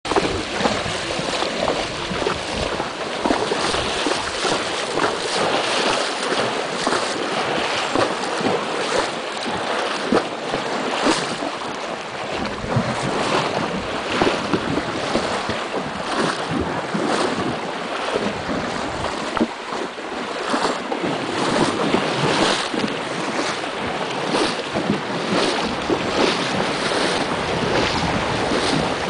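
Horses wading through a shallow river: water sloshing and splashing around their legs with each step, in an irregular run of splashes over a steady rush of water, with wind on the microphone.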